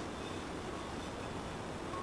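Quiet, steady room tone: an even low hiss with no distinct sounds in it.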